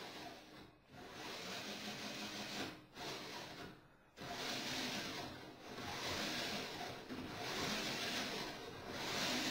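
Small electric winch motors whirring in short runs, stopping and starting several times as they follow the moving kite pole.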